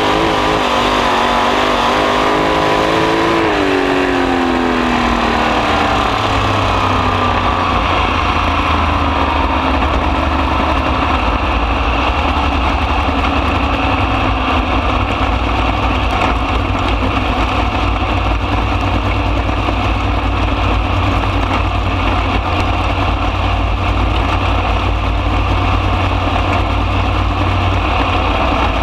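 A 305 sprint car's small-block V8 engine, loud and heard from the open cockpit at speed. The engine pitch falls over the first several seconds, then holds steady for the rest of the lap.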